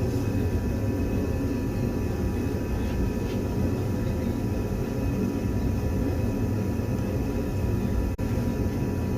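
Steady low rumbling noise with a faint steady whine, briefly dropping out about eight seconds in.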